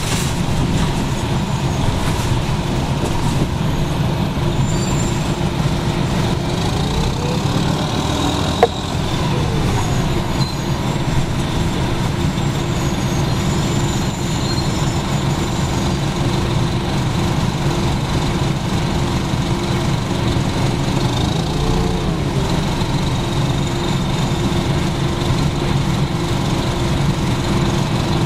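1996 NovaBUS RTS-06 transit bus heard on board: its Detroit Diesel Series 50 four-cylinder diesel rumbling steadily, with an Allison transmission gear whine that rises and falls twice as the bus speeds up and slows. The recordist takes the transmission gearing sound as a sign of a bus on its last legs. A single sharp click sounds about eight seconds in.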